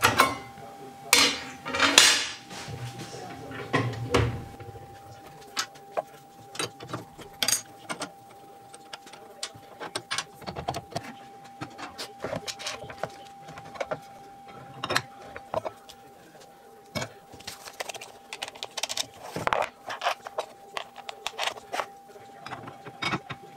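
Metal clicks, knocks and clatter of a table saw's throat plate being lifted out and parts handled at the blade opening while the saw is readied for a dado blade set, loudest in the first few seconds. A faint steady tone runs underneath.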